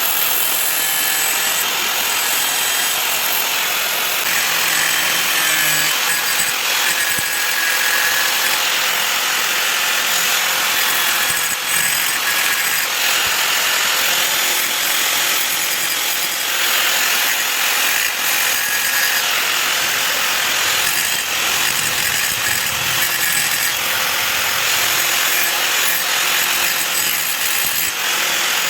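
A power tool grinding steel: a steady, continuous grinding hiss as the blade of a knife made from a shock-absorber rod is shaped.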